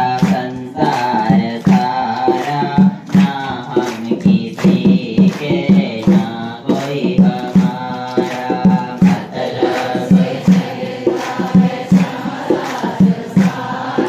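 A man singing a Hindu devotional chant into a microphone, with a regular low beat of about two to three strokes a second beneath the voice.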